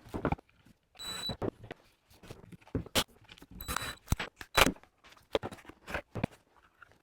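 Screws going back into the plastic head housing of a corded string trimmer during reassembly: scattered clicks and knocks of plastic parts and tools, with several short whirring bursts.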